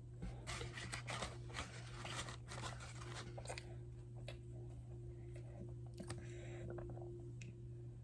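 Chewing and the soft crackle and tearing of a flaky croissant breakfast sandwich being handled and pulled apart, in a dense run of small crackles in the first half and softer crackling later. A steady low hum runs underneath.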